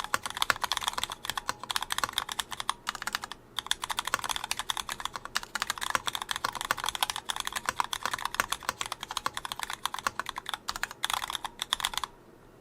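Continuous fast typing on a GON MX Mini 75% mechanical keyboard with stock retooled Cherry MX Black linear switches, unlubed, its case bottom filled with sorbothane. There is a brief pause about three and a half seconds in, and the typing stops abruptly near the end.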